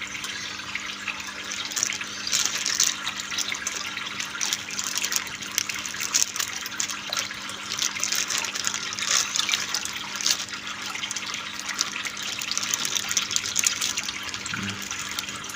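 Water splashing and trickling steadily into an aquarium, with irregular louder splashes and a faint steady low hum underneath.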